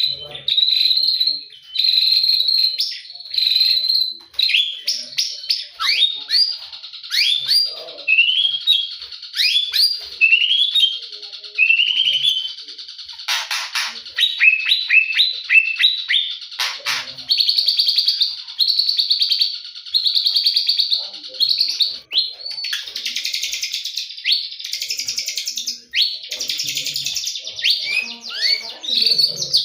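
White-rumped shama (murai batu, Medan type) singing a long, varied song: clear whistles and rising slurred notes, then rapid trills and harsher buzzy phrases later on, with only brief gaps.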